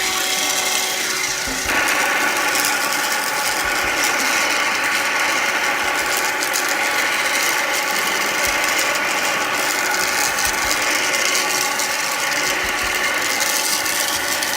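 BESTEK PRO-cyclone cordless handheld vacuum running with its long tube and brush head, a steady motor whine with a gritty rattle of crumbs being sucked up the tube. It gets louder about two seconds in.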